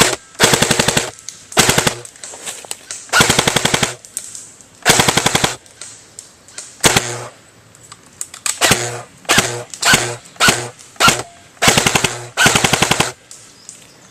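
JG M4 airsoft electric gun firing full-auto in about a dozen short bursts, each a rapid rattle of the gearbox cycling. The bursts run from a fraction of a second to under a second and come closer together in the second half.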